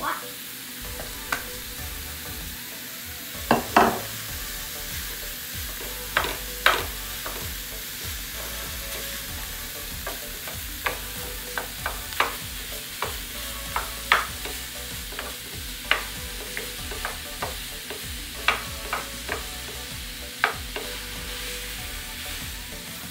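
Ground beef and onions sizzling in a nonstick frying pan, with a steady hiss, while a wooden spoon stirs and breaks up the meat, knocking against the pan many times, loudest a little over three seconds in.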